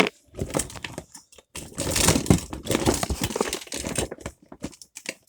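Small plastic fidget toys being sorted through by hand, a busy run of clicks, knocks and rustling that is thickest from about a second and a half to four seconds in.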